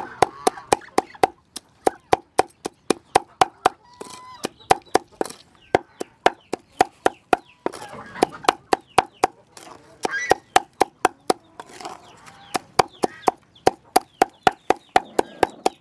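Meat cleaver chopping snail meat on a round chopping board: rapid, even strokes about four a second, in several runs broken by short pauses. Occasional poultry calls can be heard behind it.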